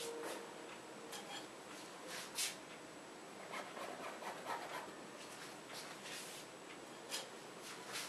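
Palette knife scraping paint across a canvas in short, irregular strokes, the loudest about two and a half seconds in.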